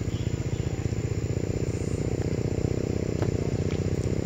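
Motor vehicle engine running steadily with a fast, even throb, with a thin steady high whine above it.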